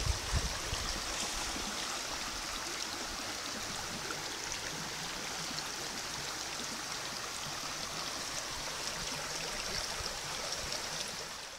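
Shallow gravel creek running, a steady rush of water that fades out at the very end.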